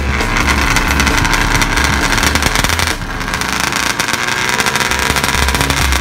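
Drag-racing quads' motorcycle engines running at the starting line, with the revs rising and falling.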